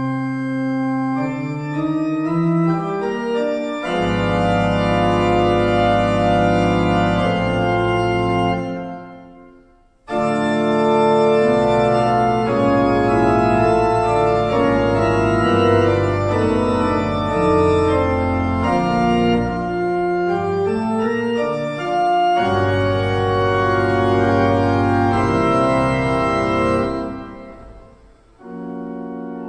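Church pipe organ playing alone: sustained chords, joined about four seconds in by deep pedal bass notes. The sound dies away to a brief pause near the middle, then the organ resumes and fades again near the end.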